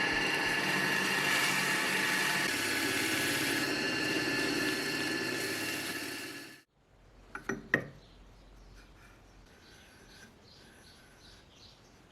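A power tool runs steadily with a high whine, then cuts off abruptly about two-thirds of the way through. A few sharp knocks follow, then faint bird chirps.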